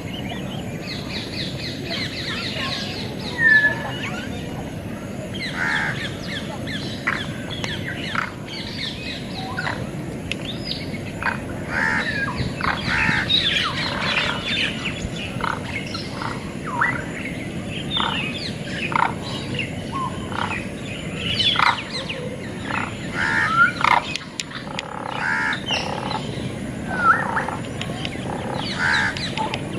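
Many aviary birds chirping and calling at once: short, overlapping chirps and squawks, some sliding in pitch, over a steady low background noise.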